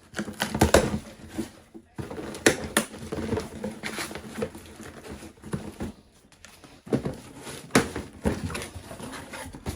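A cardboard sneaker box being opened and its contents handled: rustling of paper and cardboard with a string of sharp knocks and clatters.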